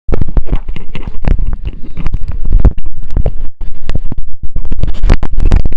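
Loud, irregular rumbling thumps and scraping from handling noise: the camera and its microphone being jostled and rubbed by hand.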